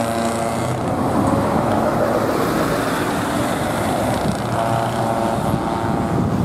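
Heavy lorries with open exhaust pipes driving past close by one after another, their engine notes loud and overlapping. A clear engine note stands out near the start and again after about four and a half seconds as each truck goes by.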